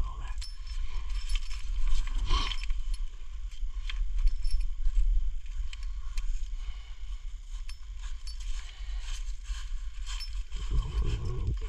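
Nylon webbing of a TracGrabber traction strap sliding and its metal buckle clinking and rattling as the strap is threaded through a muddy truck wheel's rim, with a steady low rumble underneath.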